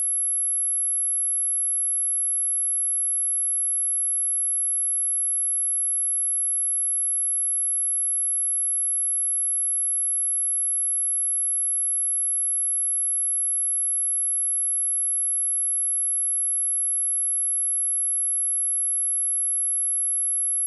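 A steady, pure, very high-pitched 11155 Hz sine-wave test tone, held unbroken at one pitch and one level.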